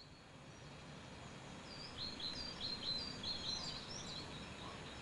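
Small birds chirping in quick, short calls over a steady outdoor background hiss, growing louder over the first two seconds, with the busiest run of chirps in the middle.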